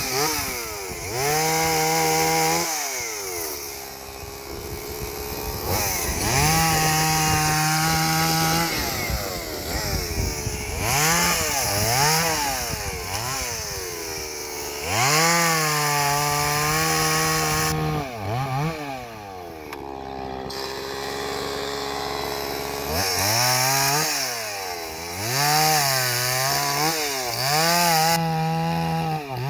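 Two-stroke Stihl chainsaw cutting brush, revved up and let fall back again and again, its pitch rising and dropping with each cut, with a steadier idle stretch past the middle and several quick revs near the end.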